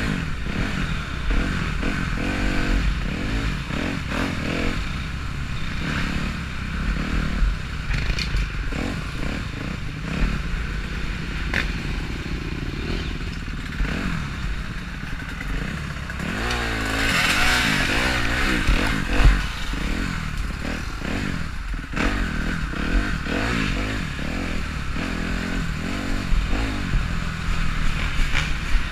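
Kawasaki KX250F four-stroke single-cylinder dirt-bike engine running at low, shifting revs, with clattering and knocks from the bike over the rough track. About two-thirds of the way through the revs rise briefly with a rush of noise.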